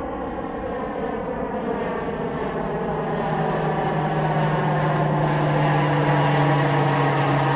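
Propeller aircraft engine drone passing low overhead, a steady many-toned hum growing steadily louder.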